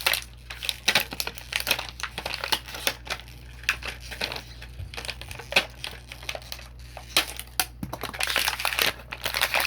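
Hard plastic Beyblade parts clicking and clattering as they are handled and fitted together, with plastic packaging crinkling, most of it near the end.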